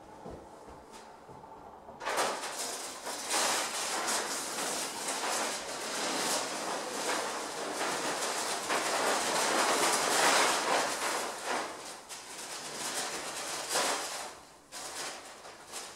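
Steel knockdown knife drawn across partly set spray texture on a drywall patch, flattening the splatter: a continuous scraping that starts about two seconds in and runs for roughly twelve seconds, with a short break near the end.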